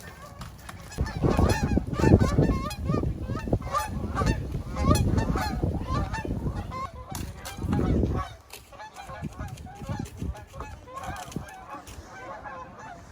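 A flock of geese honking, many short calls overlapping throughout. Three stretches of low rumbling noise rise over the calls in the first eight seconds.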